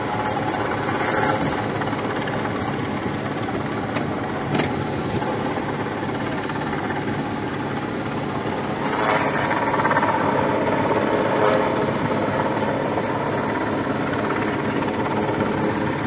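Helicopter rotor and engine noise, steady throughout and swelling louder for a few seconds past the middle.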